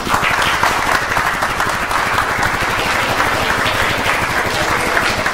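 A small audience applauding: dense, steady hand clapping that swells just before and eases off near the end.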